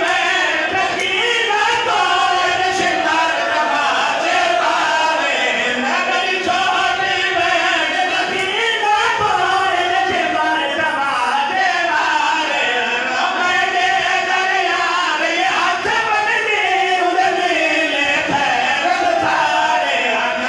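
A group of men chanting a mournful noha together into microphones, one melodic line sung in unison and sustained without a break.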